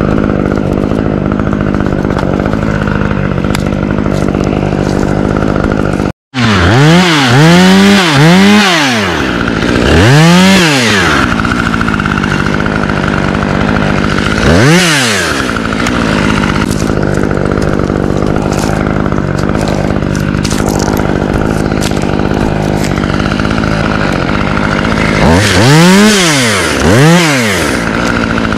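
Chainsaw running steadily, revved up and back down repeatedly: several times about seven to eleven seconds in, once around fifteen seconds, and again near the end. The sound drops out briefly about six seconds in.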